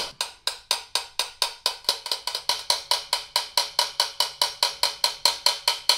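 Rapid, even tapping on the brass of a Besson trumpet bell, about four to five taps a second, each with a short metallic ring. The taps are flattening a crowned high spot back down, part of repairing earlier botched dent work.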